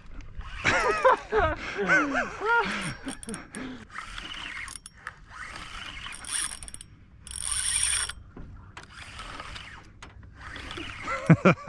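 Fishing reel working, its gears and ratchet clicking and whirring in bursts around the middle. A brief wavering vocal sound comes about a second in.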